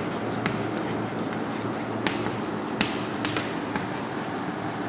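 Chalk writing on a chalkboard: scattered light taps and scratches of the chalk, a few sharp ticks a second or so apart, over a steady hiss of room noise.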